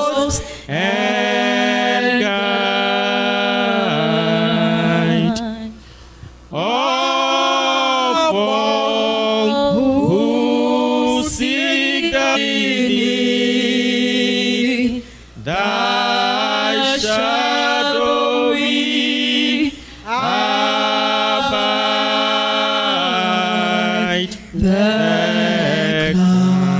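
A woman singing a slow hymn into a microphone, holding long notes in phrases with short breaks for breath between them.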